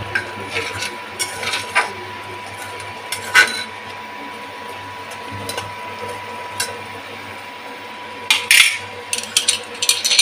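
Metal ladle scraping and clinking against the inside of an aluminium pressure cooker as a tomato masala is stirred. Scattered knocks come throughout, with a louder clatter near the end. A steady thin whine and low hum from the running induction cooktop sit underneath.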